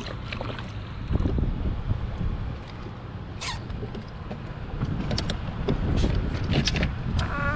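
Wind buffeting the microphone in a low, steady rumble over water splashing by the jet ski, with a few sharp clicks about three and a half and six and a half seconds in.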